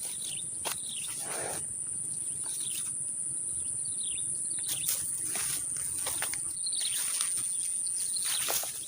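Steady high-pitched insect drone, with short falling bird chirps repeating every second or two and a few sharp clicks.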